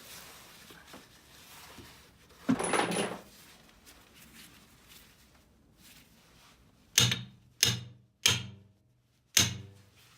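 A short scraping rustle about two and a half seconds in, then four sharp knocks in the last three seconds, as the master cylinder is worked loose to be pulled out.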